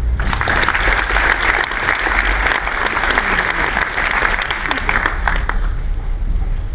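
Audience applauding, dying away about five and a half seconds in.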